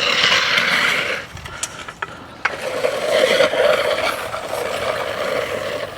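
A concrete finishing float scraping across fresh concrete in long sweeping strokes. One stroke ends about a second in, and another starts about two and a half seconds in. A few light clicks fall in the gap between them.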